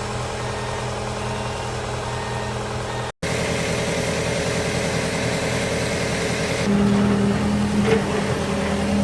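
Mortar pump truck engine running steadily with a low hum. It cuts out for an instant about a third of the way in, then gets louder about two-thirds of the way through as the pump works to push mortar through the hose.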